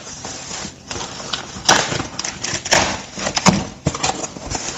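Cardboard shipping box being opened by hand: its flaps pulled apart, scraping and rustling in a few short noisy bursts.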